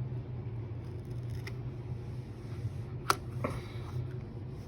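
A few small clicks from a pry tool working the screen off an iPhone XS Max, breaking the adhesive around the edge; the sharpest comes about three seconds in, with a fainter one before and after. A steady low hum runs underneath.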